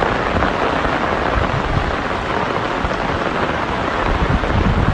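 Heavy rain pouring down and floodwater rushing across a street, a loud steady hiss with an irregular low rumble underneath.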